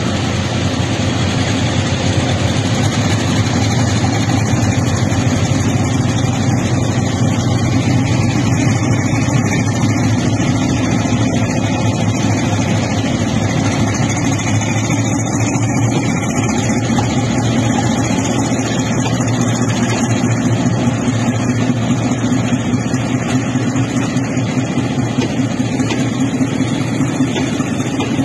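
Diesel-hauled passenger train pulling out of a station: the coaches roll past with a steady rumble of wheels on the rails, along with the locomotive's engine working to pull the train.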